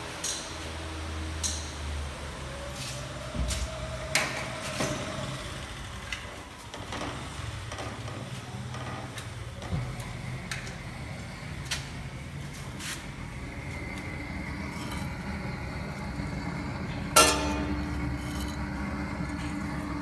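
Gas torch fed from a bottled-gas cylinder, lit and burning with a steady low rush while it heats a tire vulcanizing press. Scattered light clicks and knocks, and one loud metallic knock with ringing about 17 seconds in.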